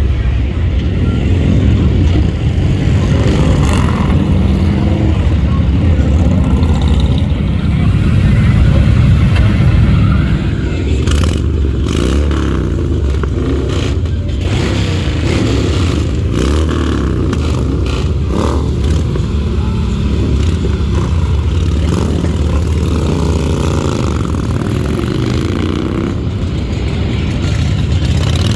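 Motorcycle engines running, with revs rising and falling near the end. A few sharp clacks come about halfway through.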